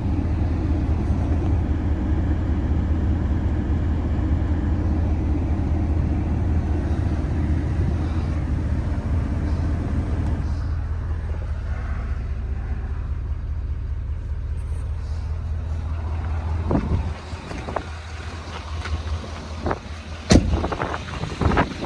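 Ford F-350's 6.7-litre Power Stroke V8 diesel idling steadily, warming up after a cold start. About 17 seconds in the level drops, and a few sharp clicks and knocks follow, one loud one near the end.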